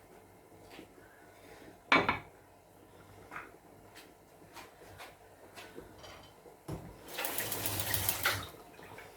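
Kitchen cookware clatter: one loud clank of a pot or utensil about two seconds in, then light clicks and taps, and about a second of running water near the end.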